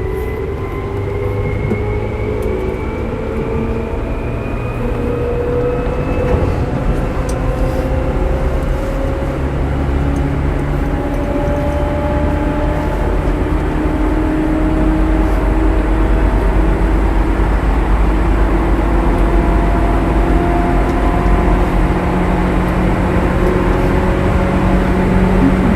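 Seibu 2000 series electric train running, its traction motors and gears whining in several tones that slowly rise in pitch over a steady rumble as it gathers speed, growing gradually louder. The train is from a set noted for an unusual running noise.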